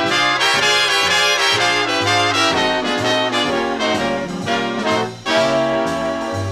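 Mid-1950s big band jazz recording: the brass section plays loud ensemble figures over a bass line, dropping back briefly about five seconds in.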